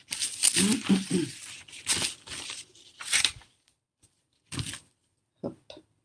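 Sheets of paper being shuffled, lifted and slid across a table, rustling in a run of short bursts, the busiest in the first second or so and then a few sparser rustles.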